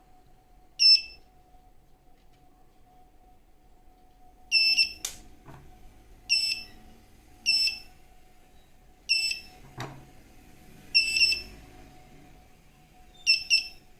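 Shrxy GP2 metal-detector pinpointer, running on a LiPo battery, beeping its high-pitched piezo alert in short irregular bursts about seven times as it picks up metal, some beeps brief and some held longer. A couple of light clicks fall between the beeps.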